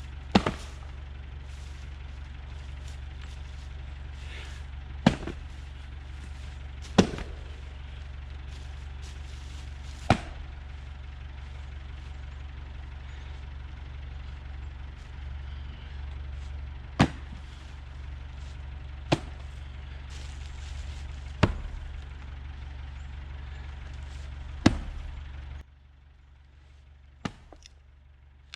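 Sharp, hard wooden knocks of firewood being handled or split, eight loud ones spaced two to five seconds apart, over a steady low hum that cuts off suddenly near the end.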